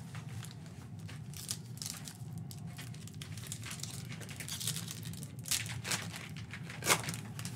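Foil wrapper of a Donruss basketball card pack crinkling in the hands and being torn open, with irregular crackles and a sharp louder crackle near the end.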